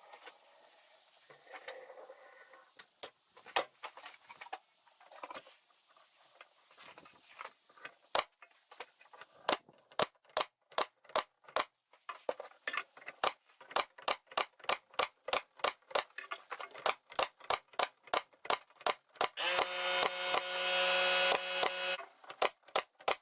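Hammer tapping finish nails into the wooden box bottom: a few scattered knocks at first, then a long run of quick taps at about two to three a second. Near the end a louder steady whirring sound lasts about two seconds.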